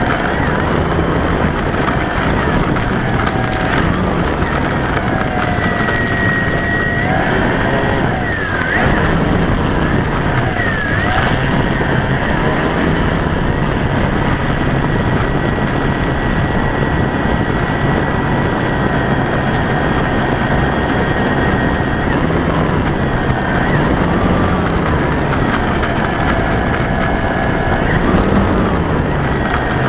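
E-Flite Timber's brushless electric motor and propeller running with the plane on the ground, its pitch rising and falling with the throttle, over a steady rush of propeller wind across the belly-mounted camera's microphone.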